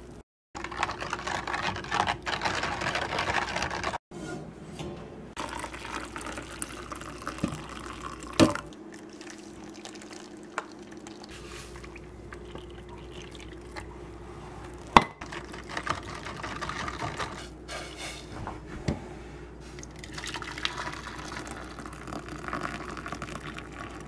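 Hot water pouring and splashing, from a stainless saucepan into a glass measuring cup and from the cup onto Jell-O powder in plastic containers, in several short takes. A few sharp knocks in between, the loudest about halfway.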